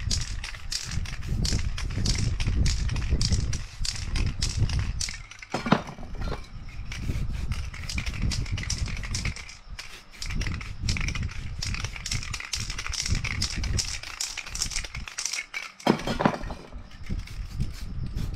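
Aerosol spray paint cans rattling rapidly as they are shaken, the mixing ball clattering inside, mixed with the hiss of spraying. Two sharper knocks stand out, about six seconds in and near the end.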